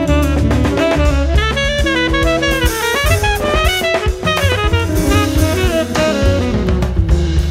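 A small jazz group playing: tenor saxophone in fast runs of notes over plucked double bass and a drum kit with cymbals.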